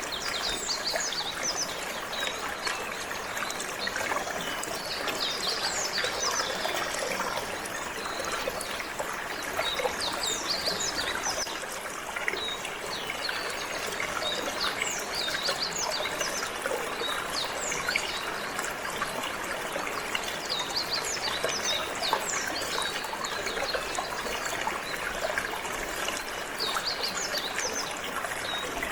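Water flowing and trickling steadily, with a canary singing throughout in quick, high chirps and trills.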